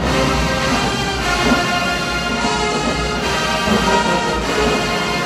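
Large marching band with sousaphones playing loudly: the brass sounds held chords that change every second or so, over steady low drums.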